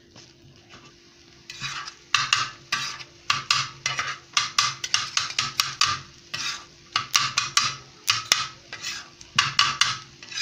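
Metal spatula scraping and clattering on a flat iron tawa griddle while stirring and chopping an egg-and-vegetable mixture. It comes in quick runs of sharp strokes, several a second, starting about a second and a half in.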